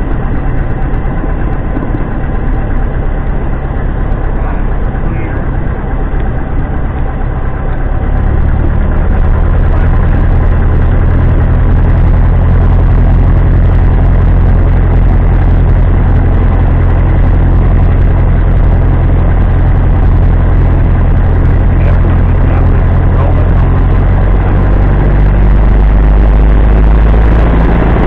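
Single-engine light aircraft's piston engine and propeller droning steadily inside the cockpit, getting louder about eight seconds in.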